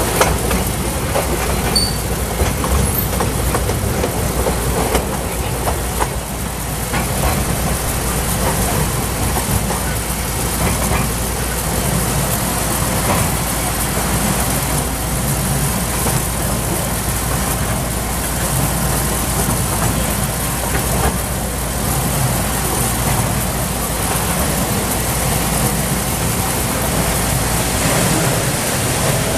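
Narrow-gauge ride-on play train running, heard from a coach just behind the locomotive's tender: a steady rumble of the engine and wheels.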